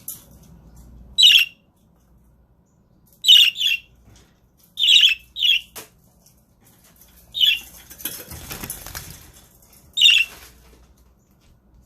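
Budgerigars giving short, sharp, high calls, about seven spread through the clip, some in quick pairs. A brief rustle about eight seconds in.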